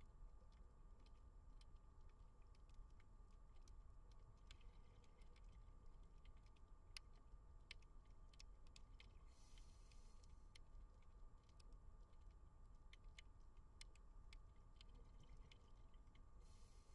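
Faint underwater ambience heard through a camera housing: scattered, irregular sharp clicks and crackles, with a short hiss about halfway through and again near the end.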